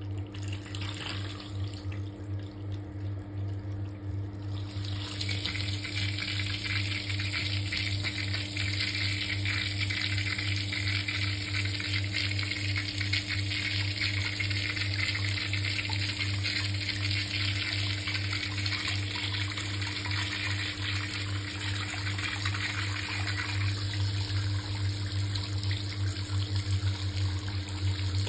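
Hot water running steadily into a bathtub as the bath fills, the flow growing louder about five seconds in, over a steady low hum.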